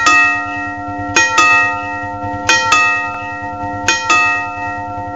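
Railway signal bell (genta) ringing in pairs of strokes, two quick strikes repeated about every 1.3 seconds, each pair ringing on over a low hum. It is the genta signal that tells level-crossing keepers a train is coming.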